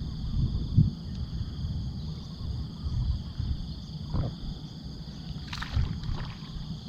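Uneven low rumbling noise under a steady high hum, from a small fishing boat on open water. A few short knocks or splashes come from about four seconds in, as gill nets are handled.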